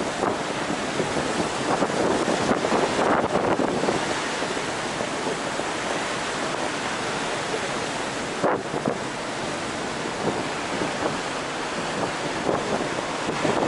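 Wind buffeting the microphone on a ferry's open upper deck, a steady rushing noise that swells and eases in gusts.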